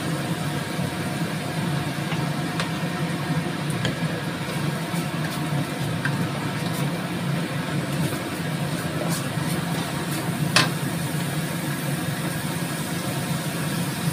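Spice paste frying in a steel wok, stirred with a wooden spatula that knocks against the pan a few times, loudest about ten seconds in, over a steady low hum.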